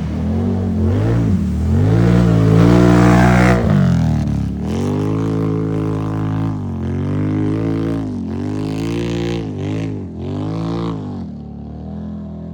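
Can-Am Renegade ATV engine revving hard, climbing in pitch for a couple of seconds and dropping off, then revved up and down in a string of quick surges before settling to a steady low idle near the end.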